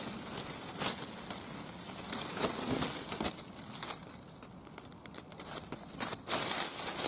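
Dry grass and leaves rustling and crackling in irregular bursts as someone pushes through and handles the vegetation.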